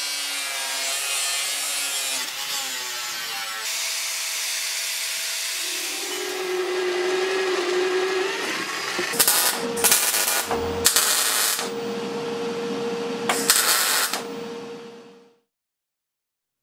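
Power tools on sheet steel: an angle grinder whining as it cuts a steel sheet, then a bench drill press running with a steady hum and drilling through a steel plate in loud bursts. The sound cuts off suddenly near the end.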